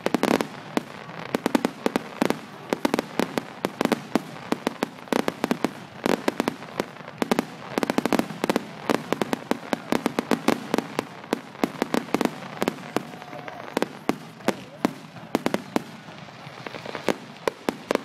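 Aerial fireworks going off in a rapid, irregular string of sharp bangs and crackles, several a second, with no break.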